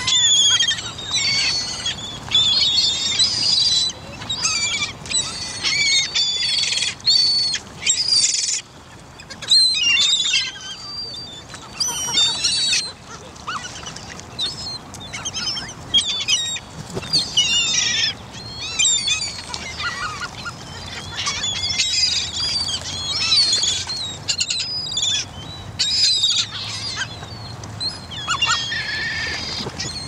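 A large flock of birds calling continuously, with many short, high-pitched cries overlapping one another, as they gather over the water to feed on dead fish.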